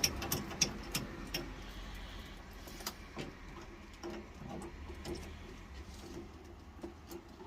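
Light clicks and taps of hand tools and small metal parts being worked on a boiler's water valve during a diaphragm change, quick at first and then sparser.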